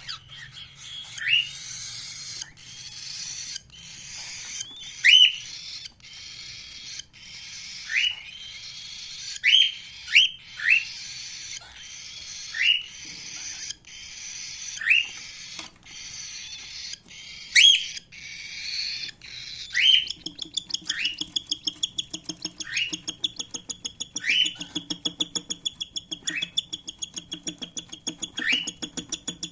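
Cockatiel giving short, rising chirps every second or two. For the first twenty seconds they sit over a steady hiss. From then on a fast, even pulsing of about five a second runs under the chirps.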